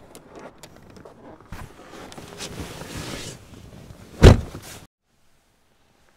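Rustling and movement, then a Toyota car door slams shut with one heavy thud about four seconds in, after which the sound cuts off abruptly.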